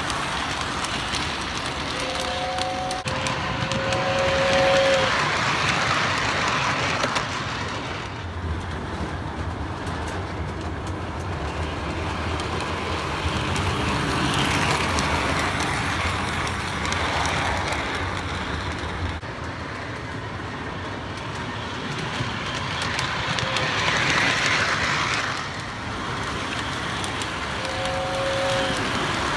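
Lionel model steam train running round a loop of three-rail track: a steady whirring and rattling of motor and wheels that swells each time the train passes close, about every ten seconds. Short two-note whistle toots come twice near the start and once near the end.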